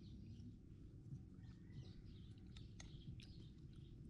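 Faint chewing with a few soft mouth clicks.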